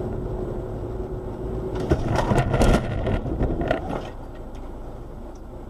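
Small mini-motorcycle engines running, with a louder stretch of shifting engine pitch between about two and four seconds in, then settling back to a quieter hum.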